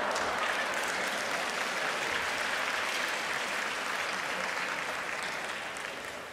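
Audience applauding at a sumo bout, a dense steady clapping that eases off near the end.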